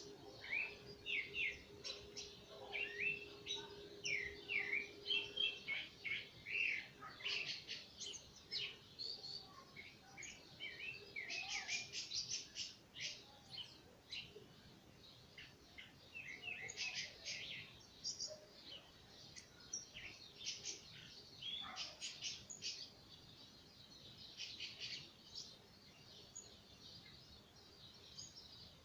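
Rufous-bellied thrush (sabiá-laranjeira) singing: phrase after phrase of short, high whistled notes with brief pauses, thinning out in the last few seconds.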